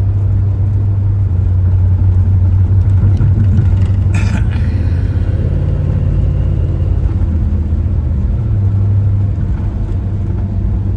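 Steady low road and engine rumble of a vehicle heard from inside the cab while driving, with a brief rattle about four seconds in.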